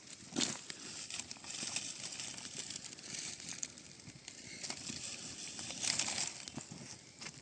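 Dry kindling crackling and rustling, with irregular sharp snaps and a louder stretch about six seconds in, as a campfire is being started.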